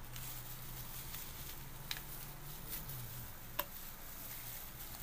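Plastic bag crinkling as it is squeezed and thick gel surfactant is poured from it into a bucket of water, with a couple of soft clicks over a steady low hum.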